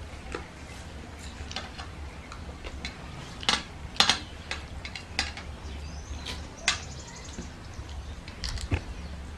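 Eating sounds of people eating rice and curry by hand: chewing and mouth clicks, with scattered sharp clicks, the loudest about three and a half and four seconds in. A low steady hum runs underneath.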